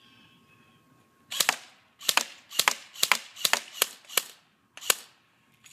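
Airsoft rifle firing on semi-auto: about eight sharp single shots in quick, uneven succession, starting about a second in.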